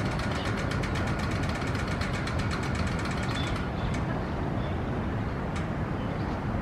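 Steady low rumble of urban traffic, with a fast mechanical ticking that stops about three and a half seconds in, followed by a few sharp clicks.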